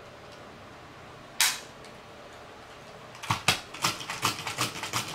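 Hard plastic clicks and snaps from an Akedo Battle Giants toy and its handheld battle controller. One sharp snap comes about a second and a half in, then a run of quick, uneven clicks near the end as the controller is worked and the warrior's fists move.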